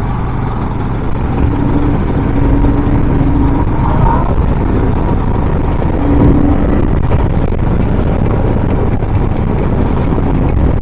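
Royal Enfield Himalayan motorcycle's single-cylinder engine running under way, with steady wind rush on the microphone. A couple of brief held tones sound over the din, about a second and a half in and again about six seconds in.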